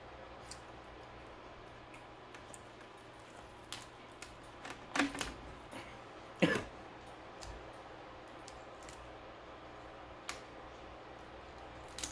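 Scattered clicks and small cracks of a steamed Dungeness crab's shell being broken and picked apart by hand, with a few sharper snaps around five and six and a half seconds in.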